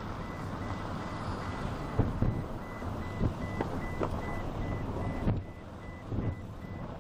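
A high electronic beep repeating about three times a second, over wind rumbling on the microphone, with a few sharp thumps from handling.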